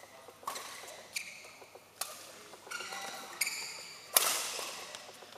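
Badminton rally: rackets strike the shuttlecock about six times, roughly every 0.7 s, with shoes squeaking on the court floor. The loudest hit, a jump smash about four seconds in, echoes in the sports hall.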